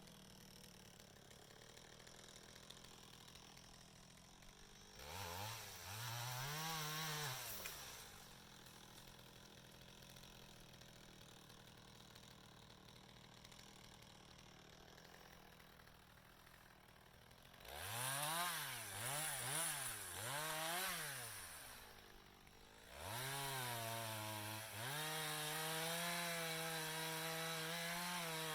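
Two-stroke chainsaw revved up and let back down once, then three quick revs together, then held at a high, steady speed near the end.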